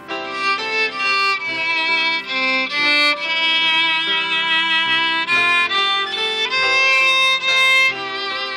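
Viola bowing a slow melody of held notes, with piano accompaniment beneath.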